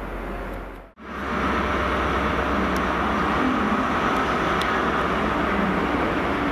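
Sound cuts out briefly about a second in, then a GWR Class 43 HST power car's diesel engine runs with a steady drone as the train moves slowly past.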